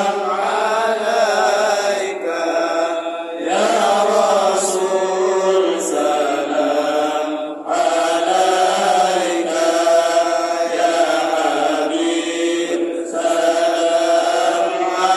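Men's voices chanting Islamic devotional praise (sholawat) in long held melodic lines, with short breaks about three and a half and seven and a half seconds in.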